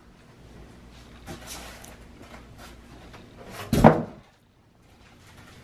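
Unpacking sounds: faint rustling and light knocks of packaging and parts being handled on styrofoam packing, with one loud knock about four seconds in.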